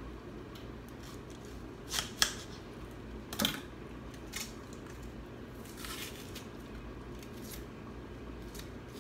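A knife cutting an onion on a cutting board, and its dry skin being peeled off by hand. There are a few short, crisp strokes and crackles, the loudest about two and three and a half seconds in.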